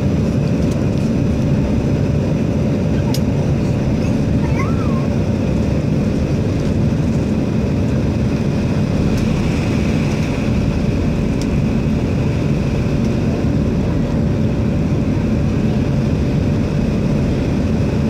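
Airliner cabin noise heard from a window seat during the descent: a steady, loud rumble of engines and rushing air with a constant hum over it. A brief faint wavering whistle comes about four to five seconds in.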